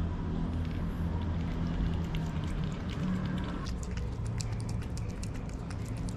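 Cats close to the microphone: a steady low rumble, joined a little past halfway by a run of small quick clicks.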